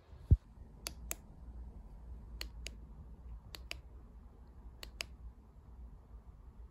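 Buttons on a Dr. Well handheld low-frequency massager controller clicking as they are pressed, four double clicks about a second and a half apart while the intensity is stepped up. A single low thump comes just before the first click.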